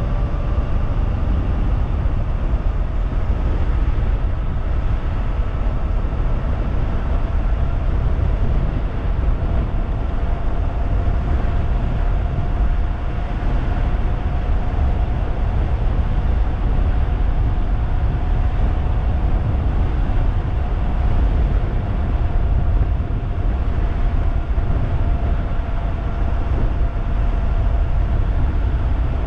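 Wind rushing over the microphone on a fast-moving 3000-watt DIY e-bike, with the electric motor's steady whine rising in pitch as the bike speeds up over the first several seconds, then holding level.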